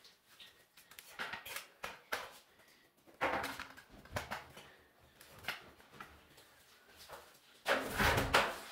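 Long-handled broom scrubbing tile, bristles scraping in irregular strokes, with a louder run of strokes near the end.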